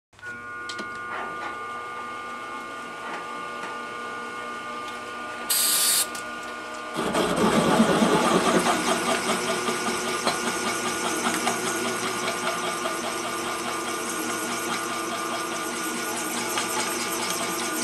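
Milling machine spindle running with a steady whine, with a short loud hiss about five and a half seconds in. About seven seconds in the twist drill bites into the steel plate and a louder, rough, rapidly pulsing cutting noise takes over as it step-drills a pilot hole out to a larger size.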